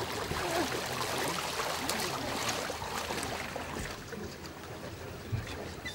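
Shallow lake water splashing and sloshing under the feet of people wading out onto the shore, with scattered small splashes and steps that ease off after about four seconds.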